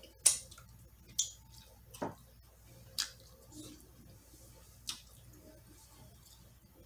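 Close-up mouth sounds of eating: fingers licked and sucked with sharp wet smacks, then chewing, with about five separate smacks a second or so apart, the first the loudest.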